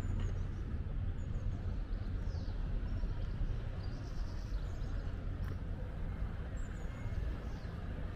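City street ambience: a steady low rumble of traffic, with a few faint, short, high bird chirps scattered through it.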